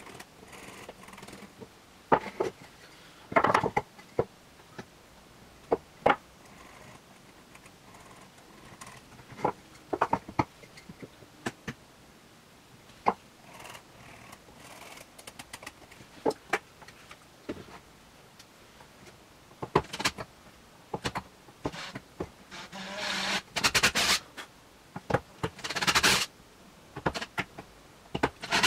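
Metal folding-table brackets being handled and worked by hand: scattered clicks, taps and scrapes of metal on metal and wood. In the last few seconds a cordless drill runs in a few short bursts, drilling into the end grain of a cedar table leg.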